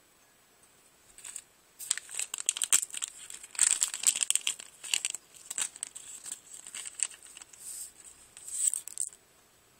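Clear plastic bag crinkling as it is handled and the paper cutouts inside are shaken out, a run of sharp crackles starting about a second in and stopping near the end.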